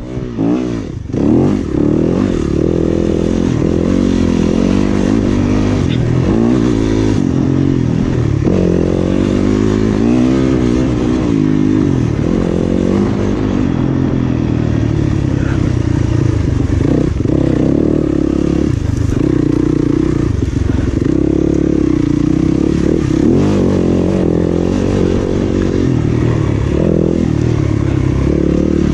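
Yamaha off-road dirt bike engine under hard riding, revving up and down continuously as the throttle opens and closes. There is a brief drop in level about a second in.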